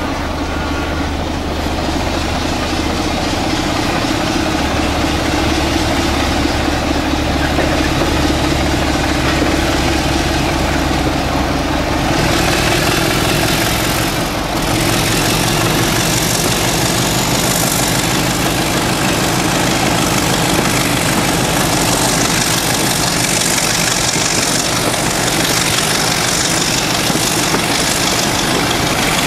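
Diesel locomotive engine working steadily under power at the head of a passenger train, heard from an open carriage window along with rail and wind noise. About twelve seconds in, the engine note shifts and the rushing noise grows.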